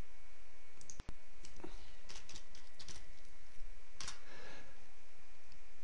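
Computer keyboard typing and mouse clicks: a short run of keystrokes and a few separate clicks over a steady background hiss, with a brief dropout about a second in.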